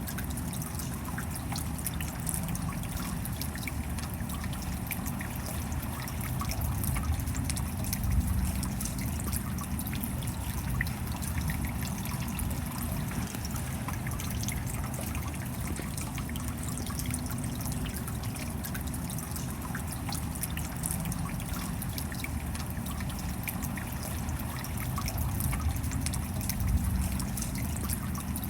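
Rain falling steadily, with a dense spray of small drop ticks over a low rumble.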